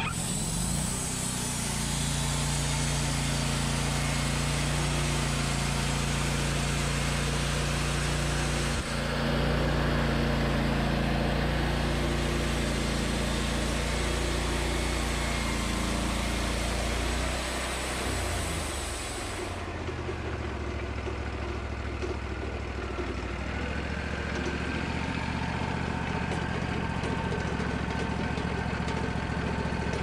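Wood-Mizer portable bandsaw mill running, its engine driving the band blade through a stack of wooden cants. About two-thirds of the way through, the engine note falls and the sound settles lower and steadier.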